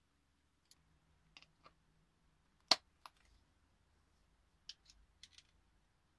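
Scattered light clicks and taps from small RC car parts being handled, with one sharper knock about two and a half seconds in.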